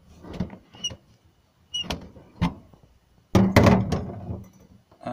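A screwdriver clicking on the screws of a small metal plate fixed to a vinyl-covered panel, with a couple of short squeaks. About three seconds in comes a louder knock followed by rubbing as the hinged panel is handled.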